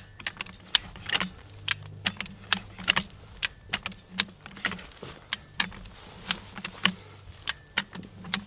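High-lift jack being worked under a heavy log: its ratcheting climbing pins click into the holes of the steel rail at about two sharp metallic clicks a second as it lifts the log.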